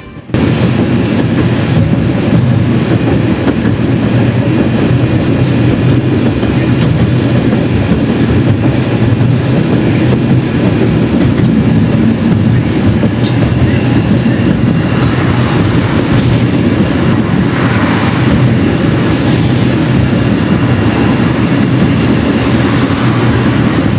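Tram running along the rails: a loud, steady rumble of wheels and running gear.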